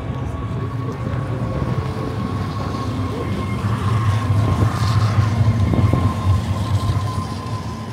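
A motor vehicle's engine passing close: a low steady hum that grows louder to about six seconds in, then eases off, with a thin steady whine over it.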